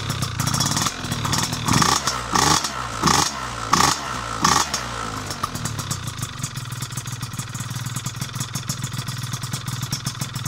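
Piaggio Zip SP scooter with a Malossi 172 two-stroke kit and PM Tuning PM59 expansion exhaust, warming up from cold: it idles, is blipped about five times in quick succession from about two seconds in, then settles back to a steady idle.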